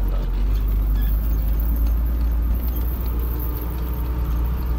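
Loaded truck's engine and road noise heard from inside the cab while driving, a steady low drone.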